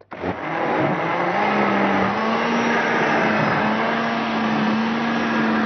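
Electric blender starting up and running, blending fresh coriander and Swiss chard leaves with a little water. The motor's pitch climbs over the first second and a half, then holds steady.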